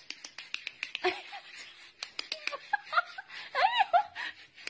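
A small kitten's high, thin mews: several short squeaks, then a longer one rising and falling in pitch about three and a half seconds in, among many quick light clicks.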